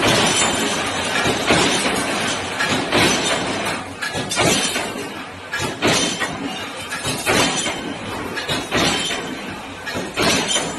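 3D CNC wire bending machine with rotating head running, sharp metallic clanks about every second and a half over a steady mechanical noise.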